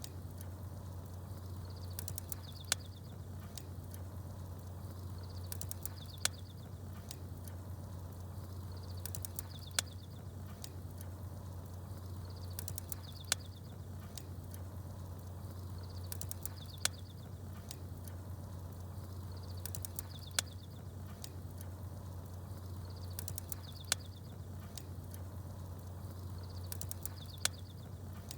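Campfire crackling, with a sharp snap about every three and a half seconds, and short bursts of small-bird twittering coming back at the same steady interval over a constant low hum.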